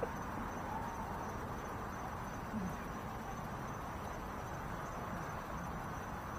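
Low, steady background hiss with a thin, high, constant whine and a couple of faint, brief murmurs.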